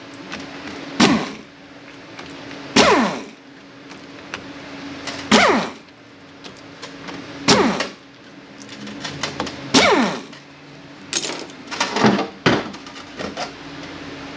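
Hand-held power tool backing out the transmission pump's T30 Torx bolts in short runs, each run a brief whine that falls quickly in pitch, repeated about seven times, with a steady low hum underneath.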